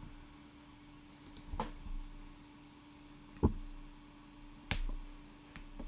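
A handful of separate sharp clicks and taps at a computer desk, the third the loudest, while he looks for something in code, over a faint steady hum.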